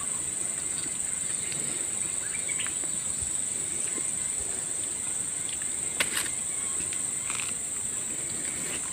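A steady, high-pitched insect chorus drones without a break. There is one sharp click about six seconds in.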